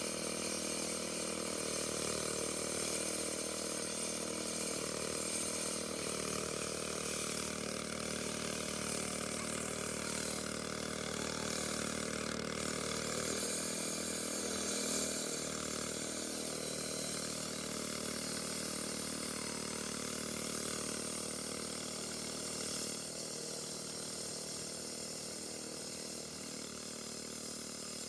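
A motorized saw running steadily while cutting concrete, a continuous engine-and-blade drone with no breaks.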